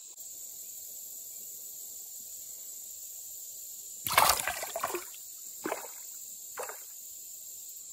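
Water splashing as a smallmouth bass is released by hand into shallow river water. There is one loud splash about four seconds in as the fish kicks free, then two smaller splashes.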